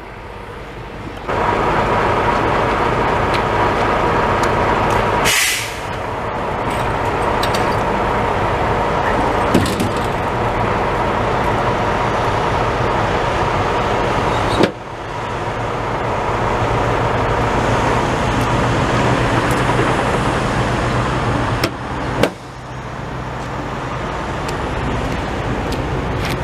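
Steady diesel truck engine and traffic noise, broken now and then by abrupt cuts, with a short hiss about five seconds in.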